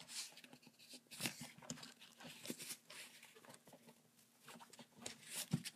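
Faint handling noise of an East German army canteen in its webbing cover being taken off a belt: soft rustling of the nylon webbing with scattered light clicks and knocks, a little louder near the end.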